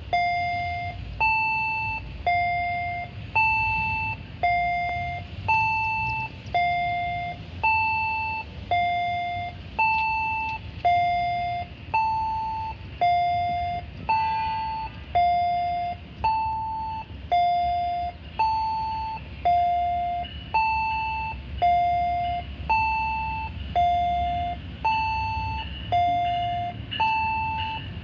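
Electronic two-tone railway warning chime alternating a lower and a higher note about once a second, each note starting sharply and fading, warning of an approaching train. A low steady rumble lies underneath.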